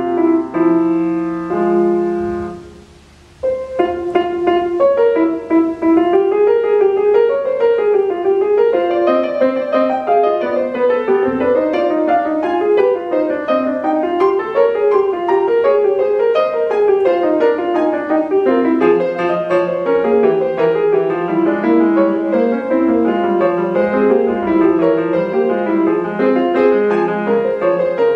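Estonia grand piano played solo: held chords, a short break about three seconds in, then quick running figures moving up and down in the middle register.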